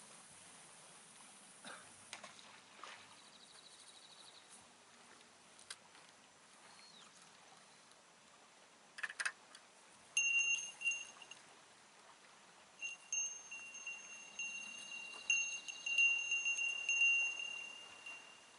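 Small bell on a fishing rod ringing, a clear high ring that comes in short bursts about ten seconds in and then rings almost without a break, rising and falling in loudness, as the rod is handled. A few clicks just before it starts.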